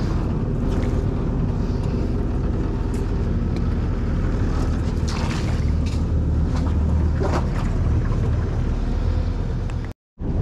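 Small boat's outboard motor running steadily at idle, with a few brief rustles and scrapes as the bow pushes into mangrove branches. The sound cuts off abruptly for a moment near the end.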